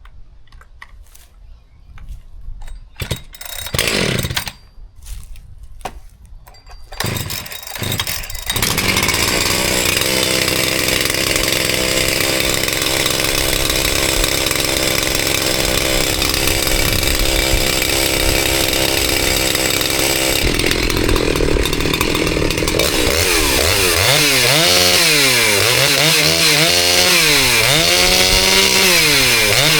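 Husqvarna 365 Special two-stroke chainsaw started with a few pulls of the starter cord. It catches about eight seconds in and runs steadily, then near the end its revs rise and fall over and over.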